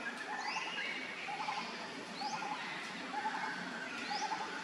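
Birds calling in forest: a short low trill repeats about every half second, with a higher rising whistle about once a second over a steady background of other calls.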